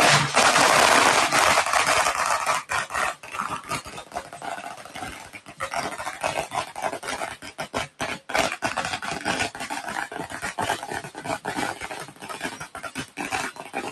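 A string of firecrackers going off in rapid, irregular bangs, loudest and densest in the first two seconds, then continuing as a crackling run of sharp reports.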